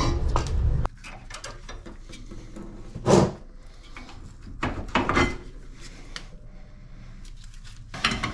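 Metal tools and car suspension parts being handled, with scattered clanks and rattles: a sharp knock about three seconds in, a few more around five seconds and again near the end. A low rumble cuts off suddenly about a second in.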